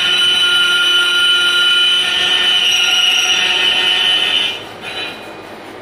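Lathe cutting tool squealing against the turning workpiece, a steady high-pitched screech. It stops about four and a half seconds in, when the cut ends, and the lathe is left running much more quietly.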